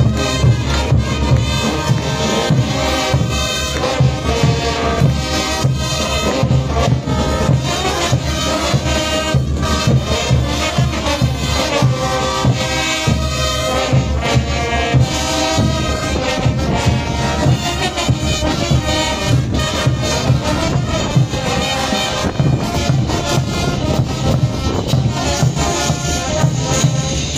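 Brass band playing morenada music with a steady drum and cymbal beat.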